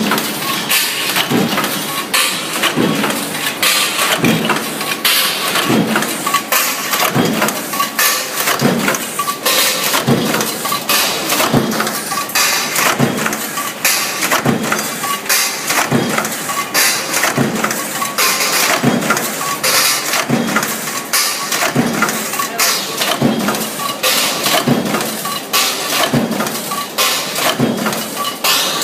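Stamping press punching metal strip through a progressive die to form junction boxes, with a stroke repeating about once a second over steady machine noise.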